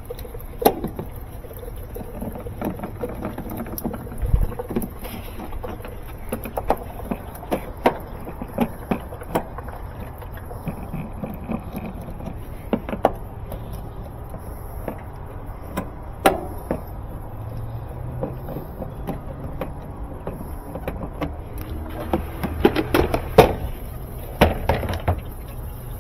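Scattered clicks and knocks of a screwdriver and hands working the washer's plastic top and control console as it is unfastened and lifted open, over a steady low rumble. The knocks come thicker near the end as the console comes up.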